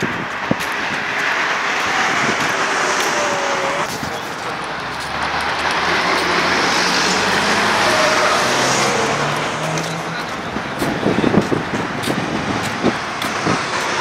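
Road traffic noise from cars passing on a busy highway interchange: a steady hiss of tyres and engines. A lower engine note from a passing vehicle comes through around the middle.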